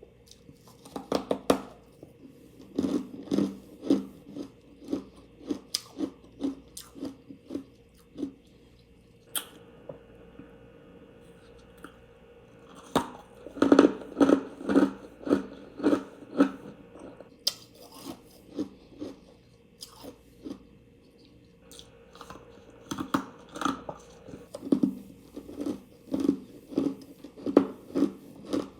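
Close-up chewing of refrigerator freezer frost: many short crunches as the soft, snowy ice is bitten and chewed, coming in runs with a few quieter pauses between mouthfuls.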